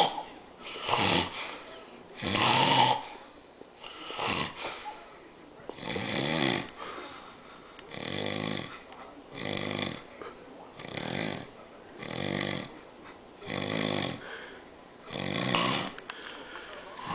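A sleeping man snoring loudly and regularly, one pitched, buzzing snore roughly every one and a half seconds.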